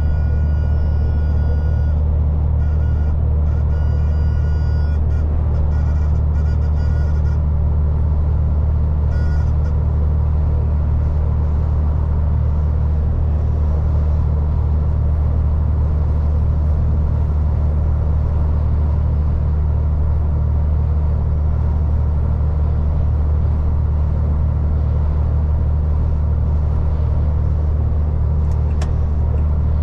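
MAN lorry engine and drivetrain running on the move: a steady, loud low rumble. Through about the first ten seconds a set of steady high tones sounds, breaking up before it fades out, and there are a couple of sharp ticks near the end.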